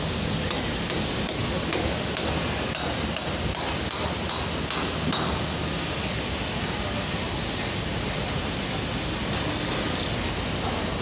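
Construction-site noise: a steady rushing background with a series of light metallic clinks and taps from scaffolding work, spread through roughly the first half, then only the steady noise.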